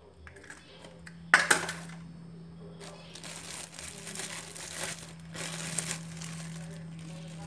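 A sharp knock about a second in, then a thin plastic bag crinkling and rustling as it is handled, over a steady low hum.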